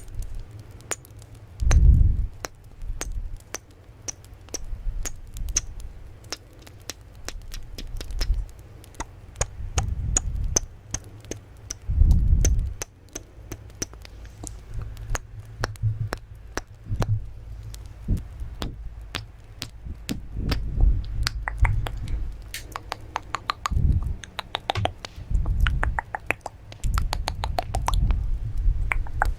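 Close-miked ASMR triggers: many sharp clicks and taps, coming faster and denser in the second half, some with a short ringing ping, over soft low thumps.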